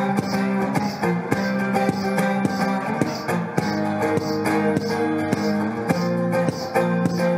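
Amplified live guitar playing a steady, repeating picked pattern over held low notes, heard through a PA.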